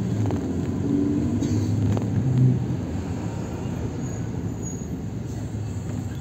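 Minibus engine running close by as the van moves slowly past, with a low steady hum. It is loudest about two seconds in.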